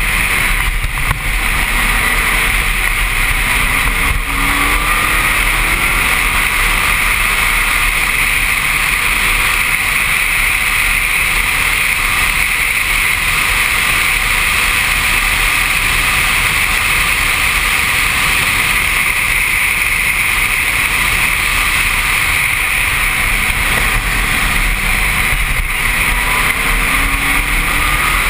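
Open-cockpit Pescarolo prototype race car (300 hp) at speed, heard from the driver's helmet: a loud, steady rush of wind and engine noise, with the engine's pitch rising now and then as it accelerates.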